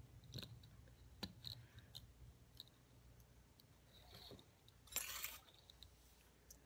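Faint small plastic clicks of a mini quadcopter's propeller blades and frame being handled and pressed onto the motor shafts. A short louder scrape comes about five seconds in, as the plastic drone is set down.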